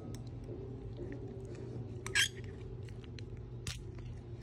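Sticky homemade slime being kneaded by hand in a bowl: small wet clicks and squelches, with one louder squish about two seconds in.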